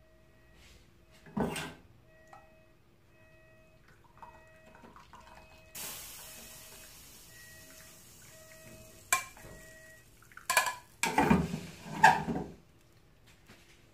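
Masala tea poured from an aluminium saucepan through a wire-mesh strainer into a ceramic mug: a steady pouring hiss for about three seconds, starting near the middle. It is followed by a run of loud metal clanks and taps as the strainer is knocked against the pan and set back in it. There is one earlier knock about a second and a half in.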